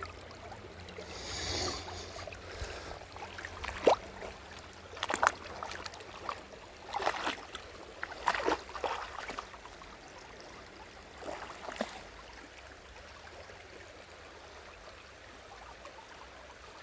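Waterfall stream water running steadily, with a few separate scrapes and knocks as a stone is handled.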